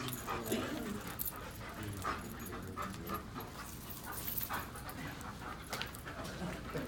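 Search-and-rescue German shepherds panting and whining softly, with no barking, mixed with scattered small clicks and rustles.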